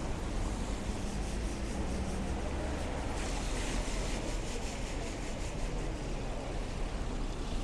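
Wet-street city traffic ambience: a steady low rumble with the hiss of tyres on rain-soaked road, the hiss growing brighter from about three seconds in until near the end.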